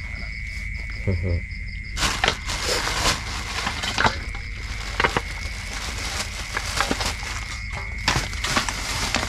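Rural outdoor ambience: a steady high-pitched insect drone, with a faster pulsing chirp over it in the first two seconds, broken by scattered sharp knocks and rustles from handling close by.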